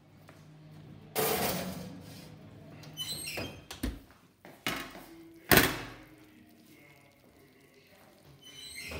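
Oven and glass baking dish being handled: a second-long rush of noise about a second in, a few clicks and a low thud near the middle, then a sharp bang, the loudest sound, about five and a half seconds in.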